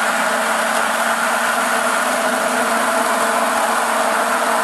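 Hand-held immersion (stick) blender running steadily at a constant pitch, whirring as it churns liquid soap batter, blending lye solution and chestnut paste into the oils to bring cold-process soap to emulsion.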